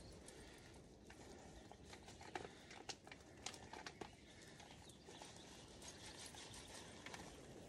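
Near silence outdoors, with faint scattered clicks and rustles of hands handling something.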